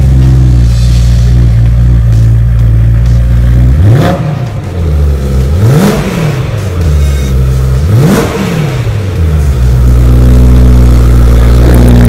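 BMW M3's 4.0-litre V8 running through an Armytrix valved axle-back exhaust with the valves closed. It idles steadily, is blipped in three quick free revs about four, six and eight seconds in, each falling straight back, then idles again.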